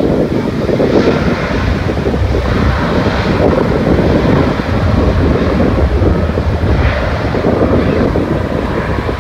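Wind buffeting the microphone with a steady, gusty roar, over the distant rumble of a Boeing 777-300ER's GE90 jet engines at power on its takeoff roll.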